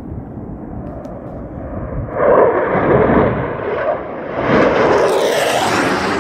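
Jet noise from the twin turbofan engines of an F-15 Eagle fighter passing low overhead, loud from about two seconds in, with a second, brighter surge about halfway through as it comes closest.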